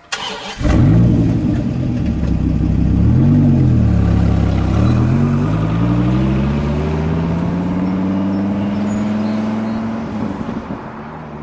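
Dodge Viper's V10 engine, loud from about half a second in, rising and dipping in pitch. The pitch then climbs steadily as the car accelerates away, and the sound fades near the end.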